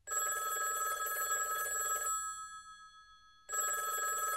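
Bell of an old rotary telephone ringing twice: a ring of about two seconds that dies away, then a second ring starting near the end.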